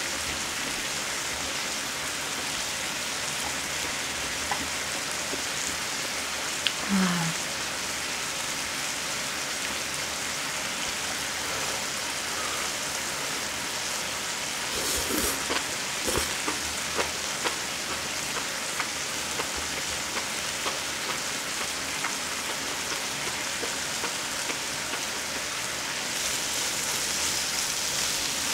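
Marinated duck ribs sizzling steadily on an electric grill pan, a hiss that gets a little louder near the end. A brief low hum comes about seven seconds in, and a couple of sharp clicks come about halfway.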